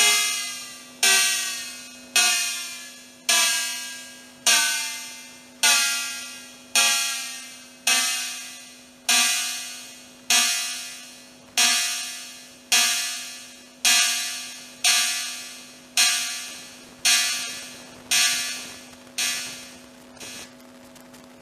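Home-built analog copy of the Roland TR-808 cowbell circuit, two square-wave oscillators near 500 and 800 Hz through a bandpass filter, striking a metallic electronic cowbell note about once a second. Each hit starts sharply and fades quickly, and a faint steady tone lingers between hits. The hits stop near the end.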